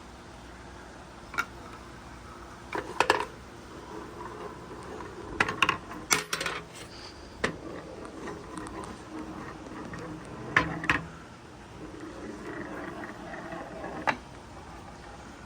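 Marbles rolling along a HABA wooden marble run, a steady low rumble broken by sharp clacks and clusters of clicks as they strike and drop between the wooden track pieces.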